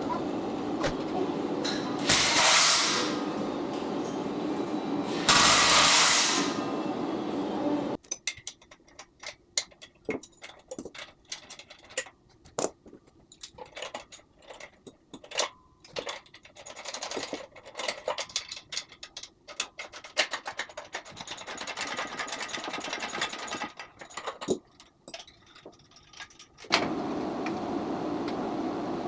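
Rack assembly work noises: two loud bursts of whirring noise, about a second each, near two and five seconds in, then a long run of scattered sharp clicks and metal knocks.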